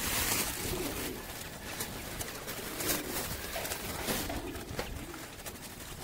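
Doves cooing: soft, low calls repeated several times.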